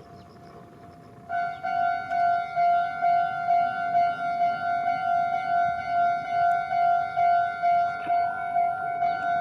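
Japanese railroad crossing warning bell starting to ring about a second in, then sounding a repeated bell tone about twice a second: the crossing has activated for an approaching train.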